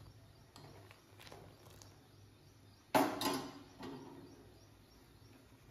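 Near silence, broken once about three seconds in by a single short knock that dies away within half a second.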